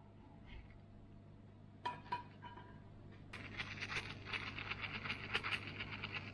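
Two light clinks about two seconds in, then a dry, rapid rattle for the last three seconds as dried parsley flakes are shaken from a spice jar over a fried egg.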